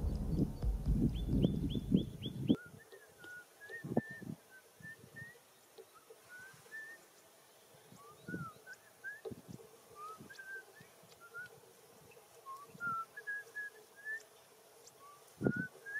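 Small birds chirping in short whistled notes that glide up and down, with footsteps on grass thudding now and then. In the first two and a half seconds a louder low rumble and a fast repeated high chirp stop abruptly.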